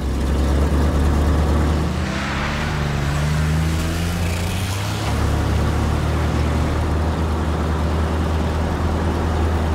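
Monster truck engine sound effect: a steady low engine drone, with a rev that rises in pitch about two seconds in.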